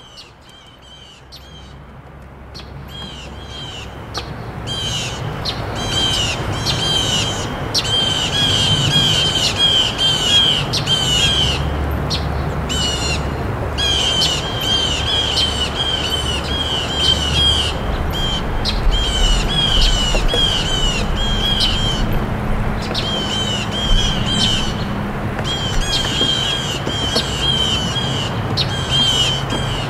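Small birds chirping over and over in quick runs of short calls that break off every few seconds, over a steady low background rumble.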